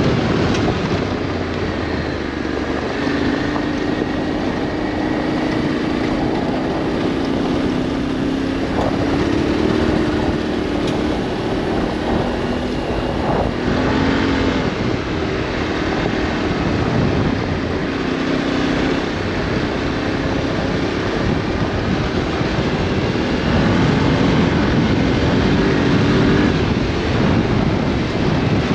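Adventure motorcycle engine running under way on a gravel track, its note rising and falling with the throttle, over steady wind and road noise.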